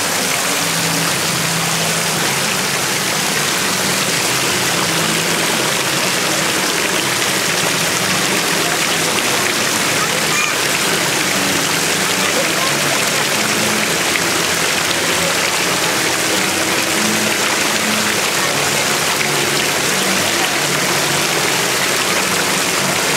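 Fountain jets splashing steadily into a shallow pool: a constant loud rush of falling water.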